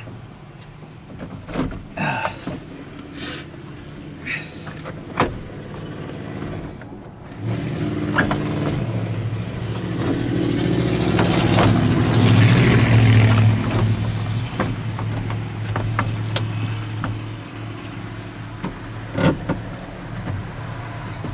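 Door trim panel of a 1985 Ford F-150 knocking and clicking against the door as it is hung and pushed into place. Partway through, a vehicle engine hum comes up, swells to be the loudest sound, then eases off but keeps going.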